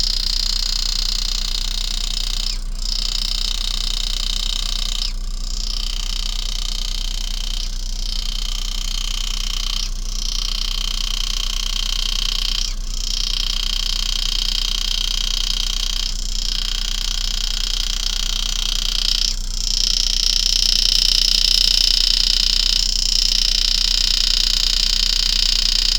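Steady high buzz of a power-assisted engraving graver cutting spiral scrolls into a coin, with a low hum beneath; the buzz dips briefly about every two to three seconds between cuts.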